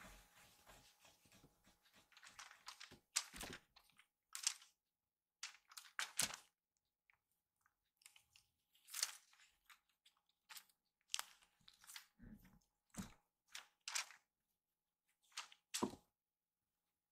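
Irregular short scuffs, taps and rustles as a kitten pounces on, bats at and grabs a feather cat-teaser toy on the floor.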